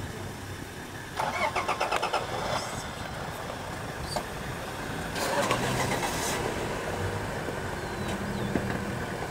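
Safari vehicle's engine idling, a steady low hum, with two louder bursts of rattling noise, about a second in and again about five seconds in.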